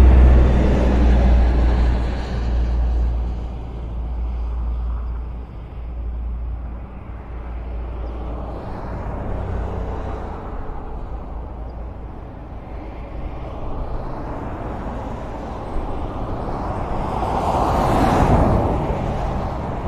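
Road traffic passing: a low engine rumble at the start fades away over several seconds. Tyre noise runs on, and a vehicle swishes past close by a little before the end.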